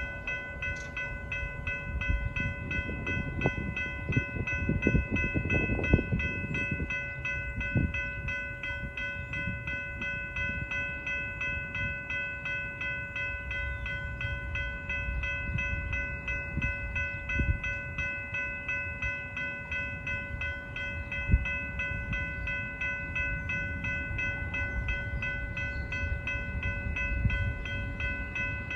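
Railroad grade-crossing bell ringing steadily and rhythmically, over a low rumble with occasional deep thumps and clanks from a freight train of covered hopper cars at the crossing.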